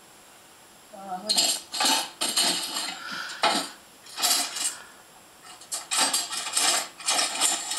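Kitchen utensils clattering in a drawer as a hand rummages through it, in irregular bursts starting about a second in.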